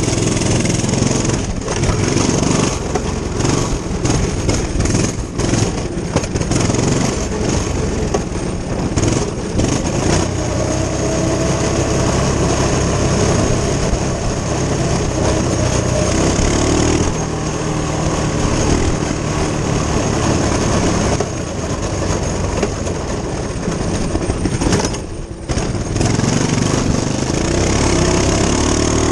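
Coleman CT200U-EX minibike's single-cylinder four-stroke engine running while being ridden, its pitch rising and falling with the throttle and briefly dropping off near the end.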